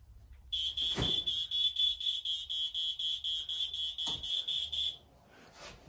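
Old smoke detector's alarm sounding under test: a loud, high-pitched shrill tone, rapidly pulsed, starting about half a second in and cutting off about five seconds in. Two knocks from handling the unit, about a second in and near the end.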